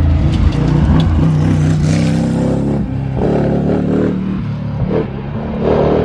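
Historic racing car engine revving, its pitch falling and rising through gear changes, with a couple of short sharp cracks in the first second.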